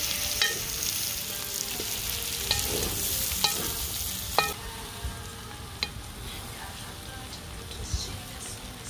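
Sausage slices, red onion and carrot sizzling as they fry in a cauldron, stirred, with a few sharp knocks of a utensil against the pot. The sizzle drops away about halfway through.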